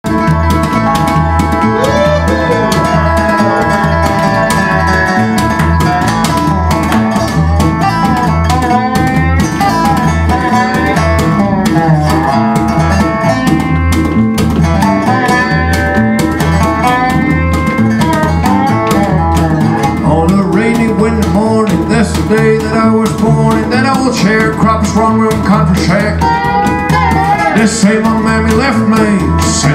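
Instrumental country-blues band intro: a resonator guitar played lap-style with a slide carries a gliding melody, over a plucked upright double bass keeping a steady beat.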